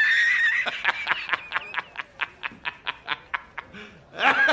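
High-pitched, sped-up snickering laugh sound effect: a held squeal that breaks into a rapid string of short "he-he-he" pulses and fades, then starts again near the end.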